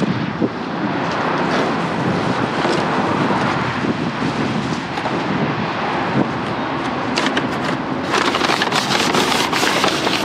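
Trash being rummaged through in a dumpster: a steady rustling and shuffling that turns into sharp, crackly rustling about eight seconds in.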